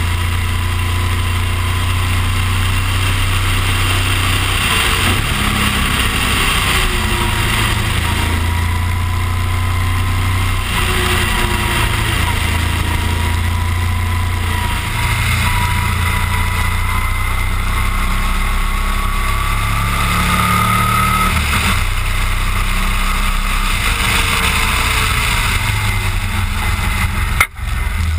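Motorcycle engine running steadily under way, heard from a camera mounted on the bike, with heavy wind noise over the microphone. The engine note rises and falls gently, and the sound breaks off for an instant near the end.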